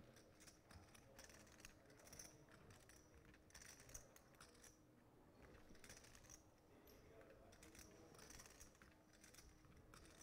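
Faint, irregular clicking of poker chips being handled and shuffled in a player's fingers at the table, over near silence.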